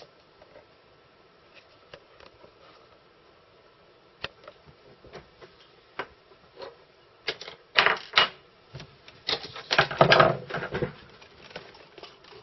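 Scattered clicks and taps of hands and tools handling a reel-to-reel tape deck's mechanism while a rubber capstan belt is threaded through it, with two louder bursts of clattering in the second half.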